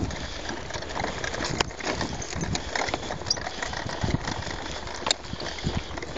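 Wheels of a pulled wagon rolling over cracked asphalt: a steady rough rumble with irregular knocks and rattles.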